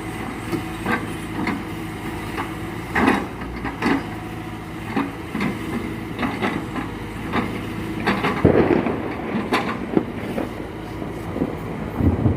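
Excavator's diesel engine running steadily while rubber-wood logs knock and clunk against each other and the machine, with irregular sharp knocks and a louder surge about eight seconds in.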